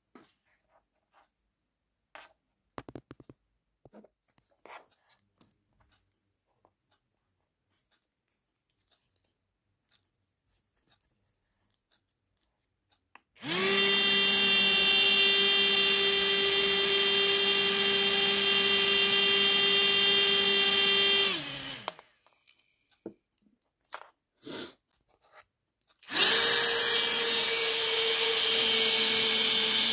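Small 9-volt battery-powered electric motor spinning the fan of a tiny 3D-printed turbofan model: a steady high whine that starts about 13 seconds in, runs for about eight seconds and winds down, then starts again a few seconds later at a higher pitch. Before it, only a few faint clicks.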